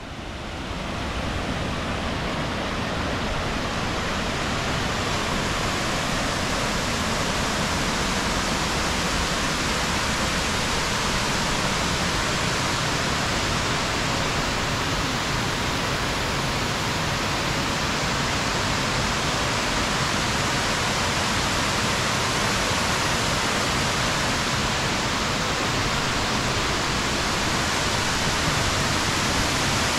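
Waterfall spilling over stone ledges: a steady rushing hiss of falling water that swells up over the first second or so and then holds even.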